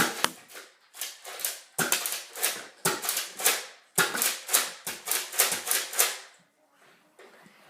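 Nerf Elite Rampage pump-action dart blaster firing a rapid string of shots, about three to four sharp clicks a second, stopping about six seconds in.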